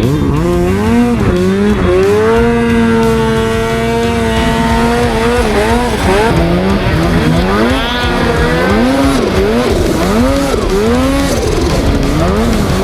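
Snowmobile engine revving: it holds a steady high pitch for a few seconds, then the throttle is opened and closed over and over, the pitch rising and falling about once a second.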